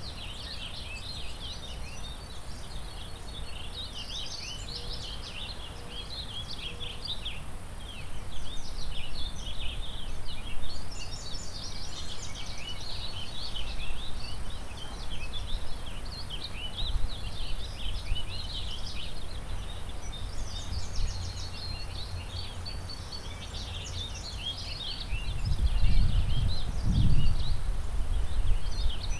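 Many songbirds singing at once, a dense tangle of chirps and trills, over a steady rush of river water. Wind gusts rumble on the microphone about a third of the way in and more strongly near the end.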